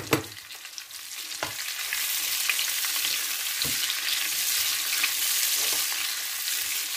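Sliced red bell peppers and sucuk sausage slices sizzling in oil in a frying pan while a spatula stirs them. The sizzle swells about two seconds in and then holds steady, with a sharp knock at the start and a couple of fainter knocks later.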